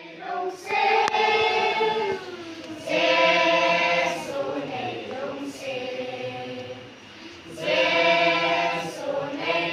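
A children's choir singing a song together, in full, loud phrases with a softer passage in the middle.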